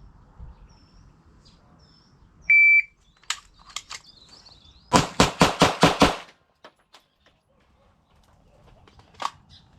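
A shot timer gives one short, high beep, and about two and a half seconds later a Glock 17 9mm pistol fires six rapid shots in just over a second: a Bill Drill, timed at 3.53 seconds from beep to last shot.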